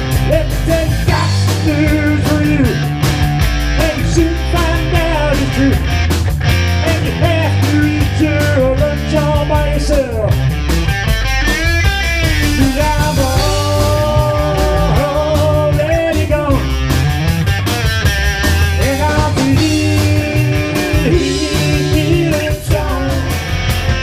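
Rock music with electric guitar and a steady beat, with some singing or a lead line.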